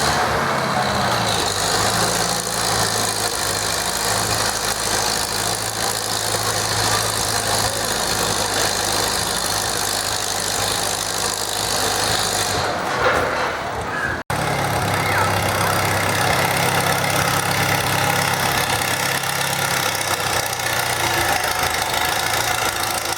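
Farm tractor engine running steadily. The sound breaks off for an instant about fourteen seconds in, and the engine is running again straight after.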